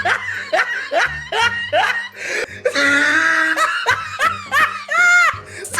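A string of short bursts of laughter, each falling in pitch, over background music with a low steady beat.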